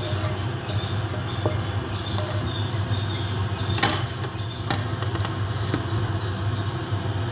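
Onion-and-tomato sauce being spooned out of a pan over fish in a baking tray: a few sharp clinks and scrapes of a utensil on the cookware, the clearest about four seconds in, over a steady low hum.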